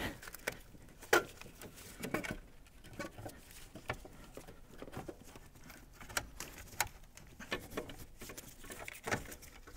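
Scattered light knocks and rustling, with a few sharper clicks spread through, as an alternator is worked loose and fished out of a car's engine bay by gloved hands.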